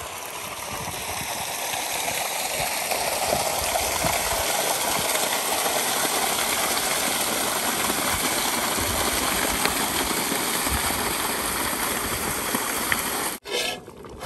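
Irrigation water gushing from a well pump's outlet pipe into a concrete tank and earth channel: a steady rushing noise that builds over the first couple of seconds and cuts off suddenly about a second before the end.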